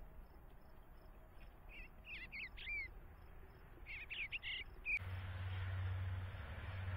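Eastern bluebird song: two short groups of soft, warbled, gliding notes about two and four seconds in. About five seconds in, a steady hiss with a low hum cuts in suddenly.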